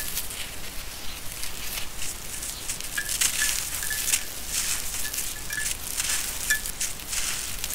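Dry sand-cement lumps crumbled and crushed by hand: gritty crunching and the hiss of fine powder and grit pouring down, swelling and easing with each squeeze.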